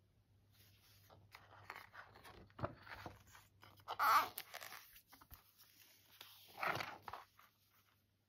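Hardcover picture book being closed and turned over by hand: paper and cardboard cover rustling and sliding, with a small knock a little before three seconds in and two louder swishes about four seconds and about six and a half seconds in.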